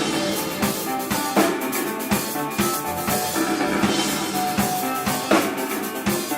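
Live band playing, with a drum kit keeping a steady beat of kick and snare hits under sustained pitched instruments.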